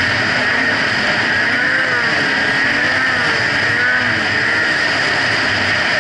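Snowmobile engine running at a steady cruising speed, its pitch wavering gently up and down, over a constant rushing noise.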